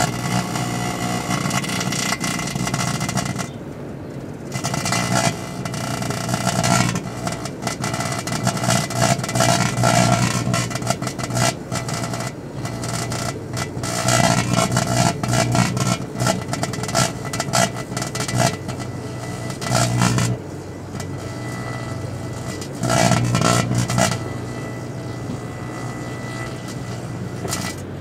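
Microwave oven running with a steady low electrical hum, overlaid by irregular bursts of crackling and hissing from sparks and burning inside the cavity, where a lighter and aerial spinner fireworks are being microwaved. The crackling comes in clusters and thins out toward the end.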